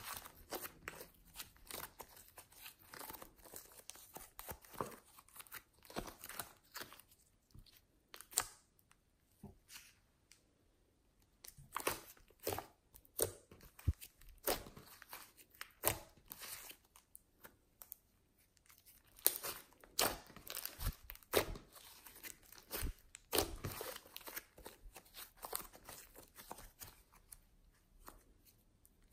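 Hands squeezing, stretching and folding green clay-mixed slime, making irregular sticky crackles and clicks, with two short pauses in the handling.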